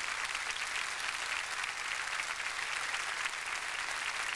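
Studio audience applauding, a steady, dense clapping with no music under it.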